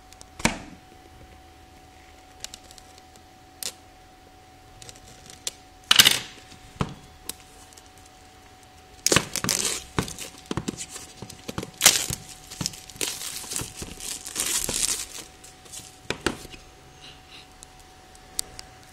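Plastic wrap on a tablet's retail box being cut and torn off, crinkling as it is handled. There are a few separate snaps in the first seconds, a loud one about six seconds in, then a long stretch of crackling and tearing from about nine to fifteen seconds in.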